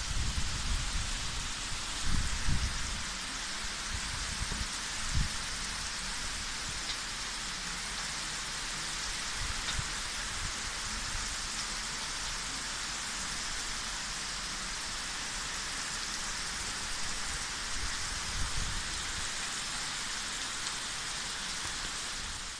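Heavy rain falling steadily, a constant hiss, with a few low thumps in the first few seconds.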